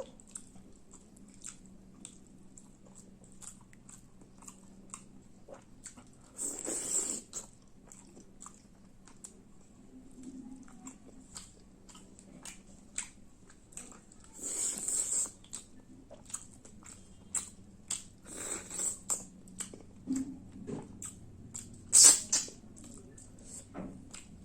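Close-miked chewing and biting of fish roast and rice: a steady run of small mouth clicks, broken by a few louder, longer noisy bursts, the loudest near the end.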